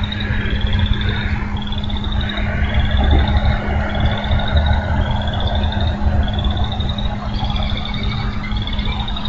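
A small animal's high, buzzy trilled call, each one rising slightly and repeated about once a second. Underneath are a constant low rumble and a steady hum.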